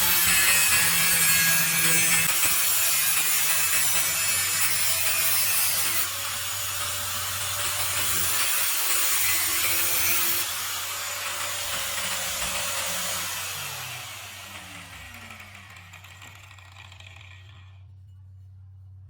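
Homemade circular saw driven by a hand drill, its blade cutting through wood with a loud, rough hiss. About three-quarters of the way through, the sound falls away in pitch and level as the blade spins down.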